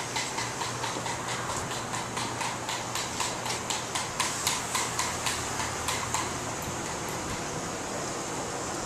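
Footsteps on concrete: an even run of short ticks, about three a second, that stops about six seconds in, over a steady low hum.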